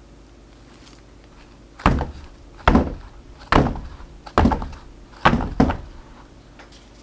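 A silicone heart mold filled with mango mousse banged down on the counter six times, dull thuds about one a second, the last two close together. The tapping knocks out air bubbles and levels the mousse.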